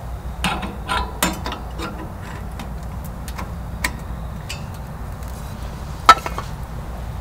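Light metallic clicks and knocks from a metal wood-burning tent stove being handled: several in the first second and a half, a few scattered after, and a sharp click about six seconds in, over a steady low background rumble.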